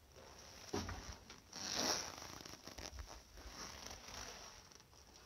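Close handling noise: a soft knock just under a second in, then a short rasping sweep that swells and fades about two seconds in, followed by light scraping and rustling.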